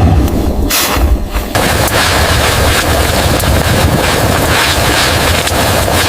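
Loud, dense rushing noise with crackles through it. It starts about a second and a half in, after a sudden thump under a second in.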